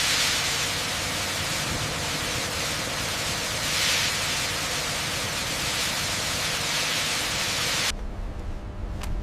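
A steady rushing hiss that swells about four seconds in and cuts off suddenly near the end, leaving a low rumble.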